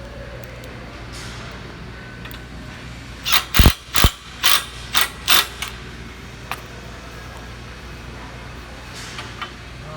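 A tool mechanism gives a run of six short, loud clatters, about two a second, a little past three seconds in, over a steady low hum.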